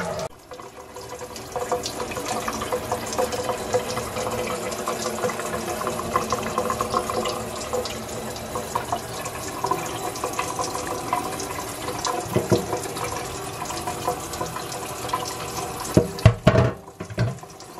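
Water running from a Brita faucet-mount filter in filtered mode, a thin stream splashing steadily into a stainless steel sink as the new filter is flushed. A few sharp knocks near the end.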